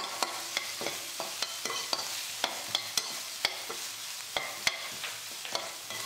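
Chopped onions sautéing in oil in a nonstick kadai, with a steady sizzle, while a perforated steel ladle stirs them and scrapes and taps against the pan in irregular clicks, about three a second.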